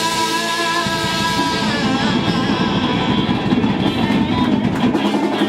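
Live rock band playing an instrumental passage, with guitar prominent and long held notes over the band.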